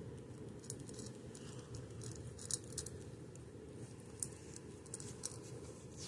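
Cat eating from a bowl of dry kibble: irregular crisp crunching clicks, a few louder ones in the middle and near the end, over a steady low background hum.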